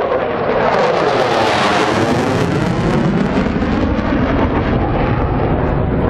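Jet roar of an F-16 fighter flying overhead; the sound swells to its loudest and brightest about two seconds in as the jet passes, then carries on as a steady rumble.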